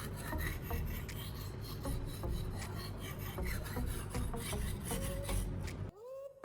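Steel knife blade scraping in repeated strokes across the coarse 240-grit side of a wet whetstone: first sharpening passes to set a new edge on a dull blade. The scraping stops near the end, where background music comes in.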